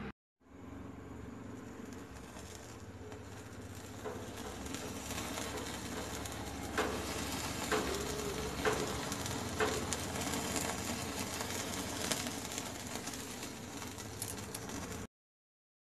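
Green-marinated chicken tikka pieces on a skewer sizzling in an open gas-burner flame over a wire grill, over the steady hiss of the burner, with a few sharp pops in the middle. The sound cuts off suddenly near the end.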